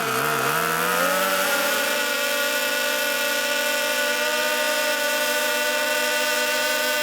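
Model pylon-racing airplane engine running at high revs, its pitch dipping and wavering in the first second, then holding steady.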